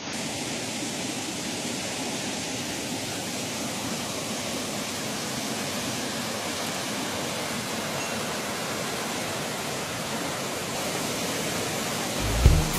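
Shallow river rapids rushing steadily over rocks. Near the end, music with a low, thumping beat comes in.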